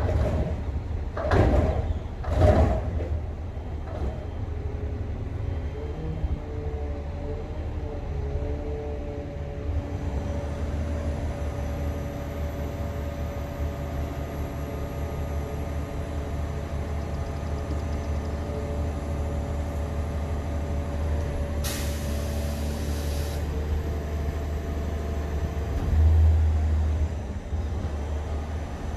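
Garbage truck working its route: the engine runs steadily, with two loud bursts of air about a second apart near the start and a steady whine through the middle. A short hiss of air comes about two-thirds of the way in, and the engine surges briefly near the end.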